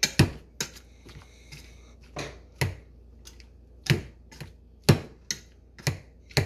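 Metal beaters of a cordless KitchenAid hand mixer knocking and clinking against a stainless steel saucepan while breaking up boiled potatoes, in sharp irregular strikes about one or two a second.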